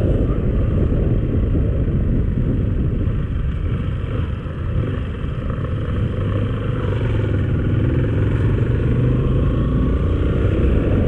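Motorcycle under way, its engine running steadily under a thick, low rush of road and wind noise, with a faint tone gliding up and down near the middle.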